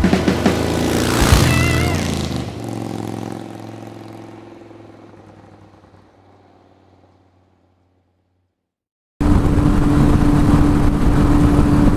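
A short intro music sting with a bright whoosh fades out over several seconds into silence. About nine seconds in, a motorcycle is heard riding at road speed from the rider's seat: a steady engine hum under loud wind noise.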